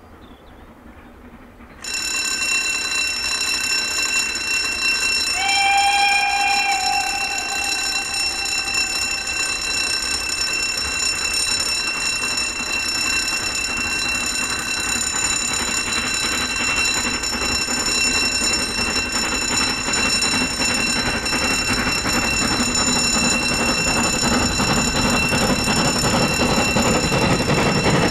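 Fowler 7F 2-8-0 steam locomotive No. 88 approaching up a gradient, working hard, with its sound growing louder toward the end as it nears. A steady high whine of several even tones starts suddenly about two seconds in and runs on. A brief whistle sounds about five seconds in.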